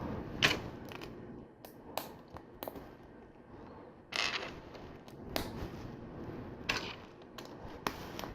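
Small LEGO plastic pieces being handled and pressed together: scattered short clicks and taps, with a few sharper ones.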